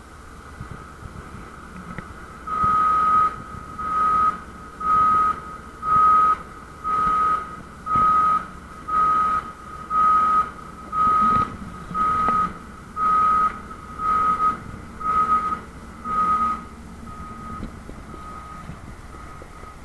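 Back-up warning beeper on heavy port machinery, a single-pitched beep repeating about once a second. The beeps start about two seconds in and grow much fainter near the end, over a low machinery rumble.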